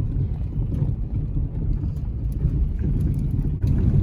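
Lifted Toyota Camry crawling slowly over a rocky trail: a low, steady engine and drivetrain rumble with scattered clicks of tyres crunching on rocks. The rumble briefly drops out near the end, then comes back slightly louder.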